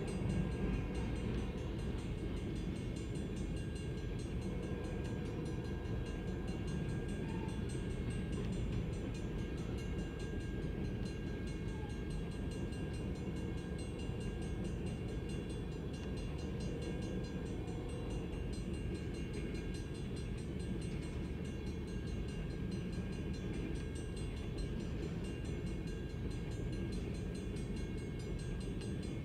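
Freight train of tank cars rolling past a grade crossing: a steady low rumble of wheels on rail, heard from inside a car.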